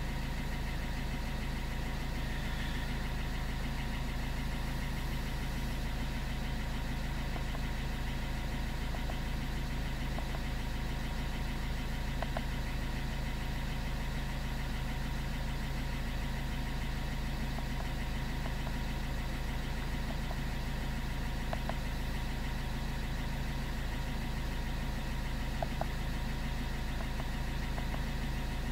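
Car engine idling steadily, with a few faint clicks here and there.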